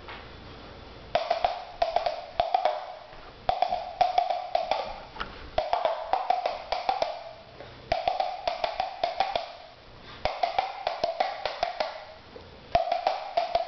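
A boy imitating a horse trotting with mouth clicks: rapid clip-clop clicks in six bursts of about a second and a half each, with short pauses between.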